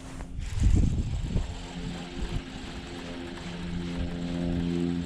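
Steady motor drone made of several even tones, setting in about a second and a half in, with wind buffeting the microphone and a low thump about half a second in.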